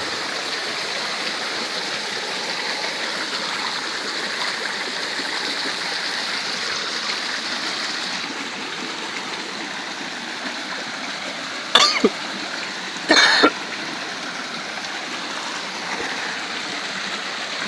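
Steady rush of flowing water, an even hiss throughout. Two short, sharp louder sounds break in about two-thirds of the way through, the second a little longer than the first.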